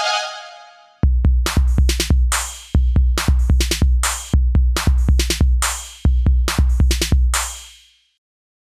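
Electronic drum-machine beat: four repeated phrases of heavy, punchy kick-and-hit strokes, each closing on a longer decaying hit, that stop dead near the end. Violin music fades out just before the beat starts.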